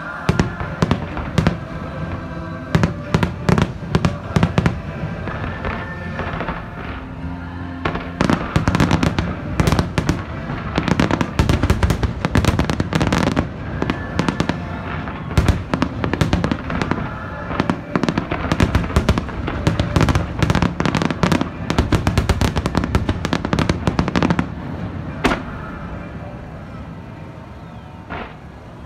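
Fireworks display: scattered bangs at first, then a dense barrage of rapid bangs and crackling bursts through the middle, with one last bang and a fade near the end. Music plays underneath throughout.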